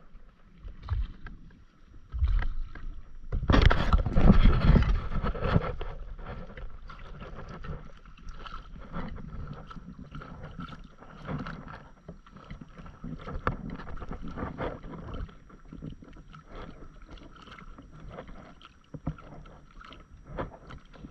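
Small waves lapping and slapping against the side of an inflatable stand-up paddleboard, with some wind on the microphone. There is a louder rush of water about three to five seconds in.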